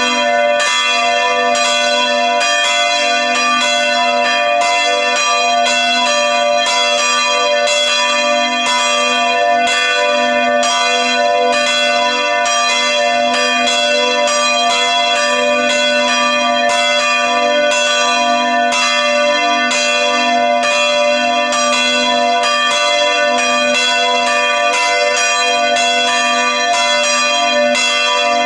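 Church bells ringing continuously, struck over and over at about two strokes a second, each stroke's tone ringing on into the next.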